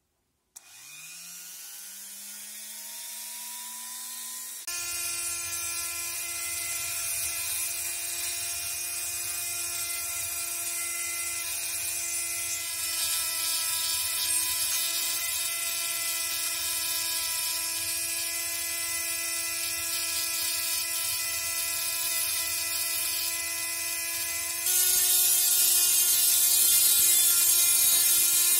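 Rotary micro-grinder spinning up about half a second in, its whine rising in pitch, then running steadily while a sanding drum and an abrasive stone grind the steel head of a mason's hammer, giving a high grinding hiss over the motor whine. Near the end the whine jumps a little higher and louder.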